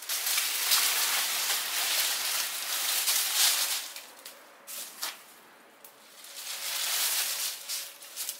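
Bonfire of pruned branches and leaves crackling and hissing as it burns, swelling louder twice with a quieter lull in the middle.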